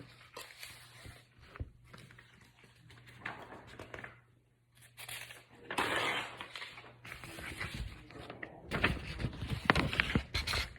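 Handling noise as the camera is picked up and moved: irregular rustles, scrapes and knocks, busiest in the second half.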